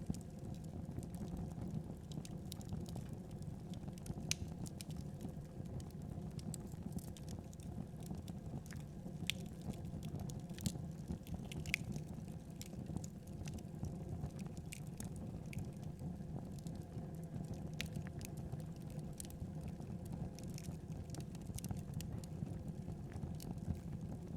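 Wood fire burning in a fireplace: a steady low rush from the flames, with scattered sharp crackles and pops from the burning logs.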